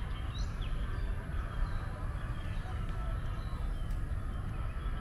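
Outdoor ambience: a steady low rumble, with a few short high bird chirps right at the start and fainter ones after.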